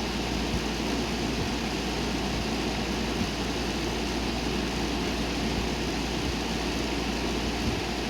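Hampton Bay 10,000 BTU window air conditioner running in cooling mode with its fan on high: a steady rush of air over a low hum.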